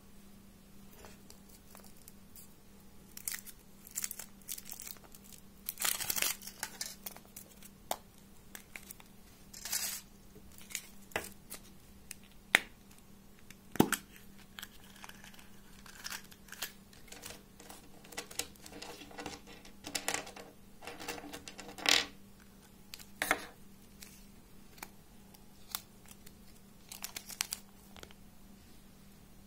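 Foil wrapper of a Kinder Surprise chocolate egg being torn and crinkled by hand, with sharp clicks and snaps as the shell is split and the yellow plastic toy capsule is handled and opened, in irregular bursts of rustling.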